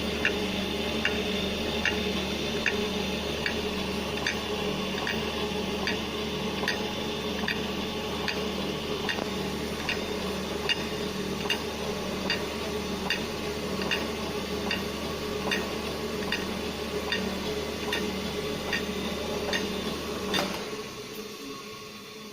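GD 450Q circular saw blade grinder running, its motor humming steadily with a sharp click a little more than once a second as it works round the blade tooth by tooth. Near the end a louder click comes and the machine shuts off.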